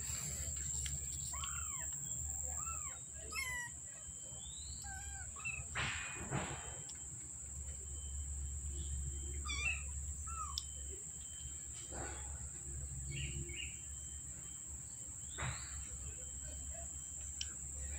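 Young kittens mewing: short, high, arched calls scattered through, over a steady high-pitched whine and a low background hum.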